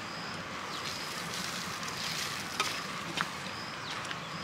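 Outdoor ambience: a steady hiss with short high chirps and little falling calls repeating every second or so, and two faint clicks in the second half.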